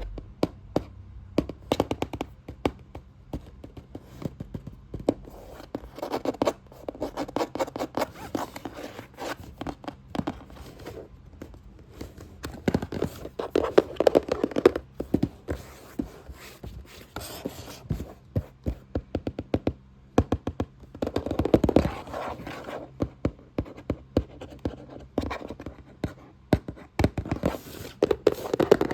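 Fast, aggressive tapping on a box, rapid sharp taps with several stretches of scratching across its surface.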